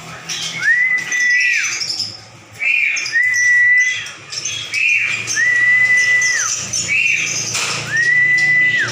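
A long, level whistle held about a second, each led by a short higher note, repeated four times, amid the chirping of caged songbirds.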